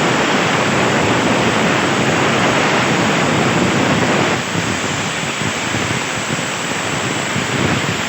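CNC plasma torch hissing steadily as it cuts thin sheet steel. The hiss drops a little in level about four seconds in and carries on.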